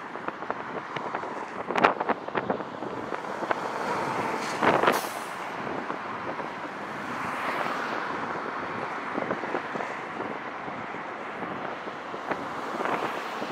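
Highway traffic passing close by, cars whooshing past one after another, with wind buffeting the microphone. The loudest passes come about two and five seconds in.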